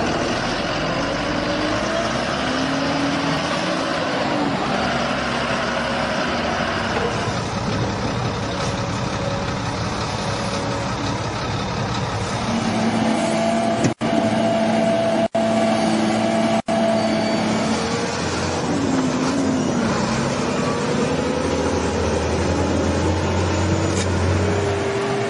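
Heavy diesel engine of a Sinotruk Howo 6x4 dump truck running and revving, its pitch rising and falling several times. The sound cuts out briefly three times near the middle.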